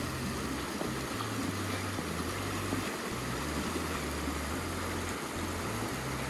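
Fast, shallow river rushing over rocks in a steady roar of white water, with the low bass notes of background music under it.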